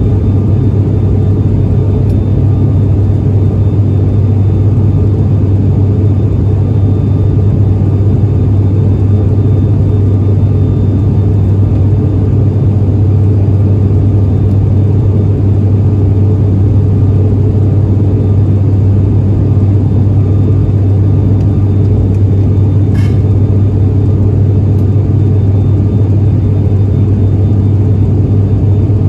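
Cabin noise of an ATR72-500 turboprop in cruise: the Pratt & Whitney PW127 engines and six-blade propellers give a loud, steady, low drone, heard from a window seat beside the engine.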